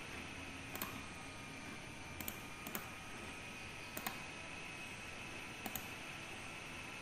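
Computer mouse button clicks, about five of them spaced a second or so apart, most heard as a quick double tick of press and release, over a steady faint hiss.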